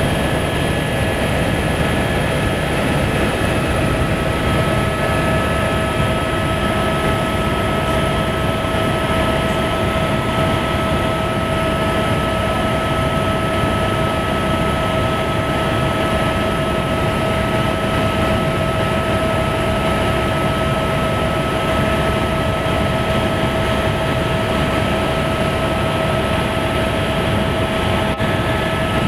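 Helicopter engine and rotor noise heard inside the cabin in flight: a loud, steady rumble with a constant high whine over it.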